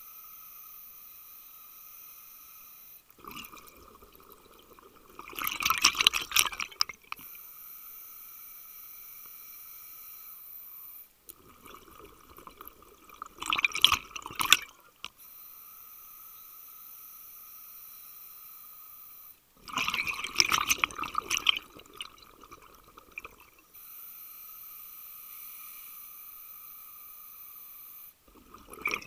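Scuba diver breathing through a regulator underwater: long hissing inhalations with a steady whistle-like tone, each followed by a loud burst of exhaled bubbles, about every seven to eight seconds, four times.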